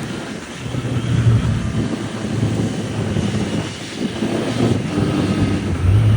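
2025 Triumph Street Triple RS's 765 cc inline three-cylinder engine running, its revs rising and falling, with a dip in level about four seconds in.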